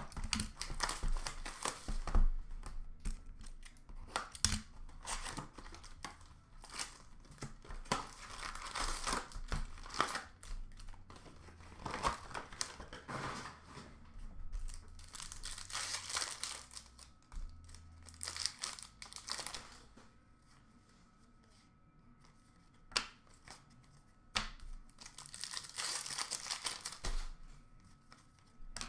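Wrappers of 2011-12 Upper Deck SPx hockey card packs being torn open and crinkled by hand, in irregular rustling bursts with a few sharp clicks. There is a quieter spell about two-thirds of the way through, then more crinkling.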